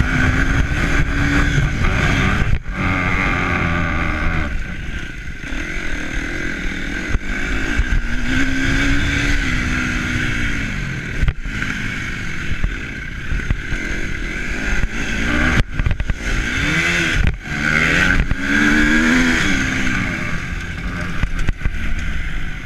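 An engine whose pitch rises and falls several times, under heavy wind rumble buffeting the microphone.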